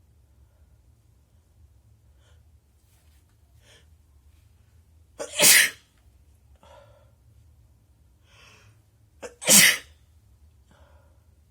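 A person sneezing twice, about four seconds apart. Each loud sneeze follows a quick catch of breath, with faint sniffs and breaths in between.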